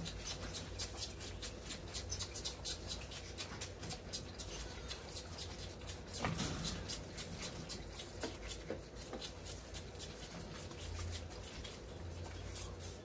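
White-tailed deer fawns suckling from bottle nipples on a rack feeder, making rapid, irregular wet smacking and clicking sounds, several a second. There is a single louder knock about six seconds in, as a bottle is set into the wooden rack.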